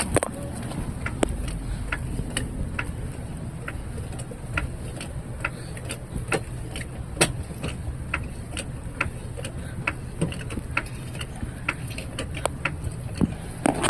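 Tire-changing tools at work on a car wheel: a run of sharp, irregular metallic clicks, a few a second, over a low steady hum.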